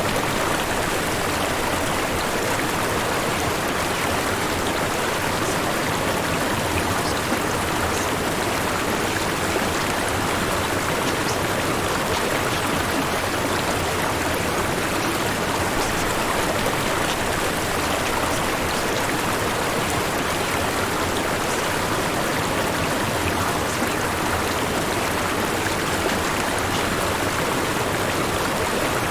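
Steady white noise: an even, unbroken rushing hiss spread across the whole range, with no pauses or changes.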